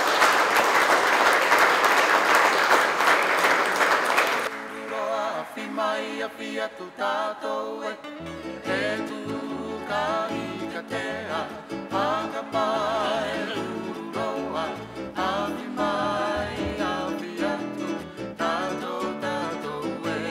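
Audience applause for about the first four seconds. Then a song starts, with singing over guitar and a bass line that comes in about eight seconds in.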